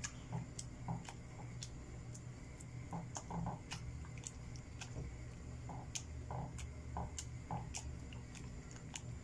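Thick mashed beans in lard being stirred with a plastic masher in a steel frying pan as they come to a simmer: faint soft squishing with many small scattered pops and clicks.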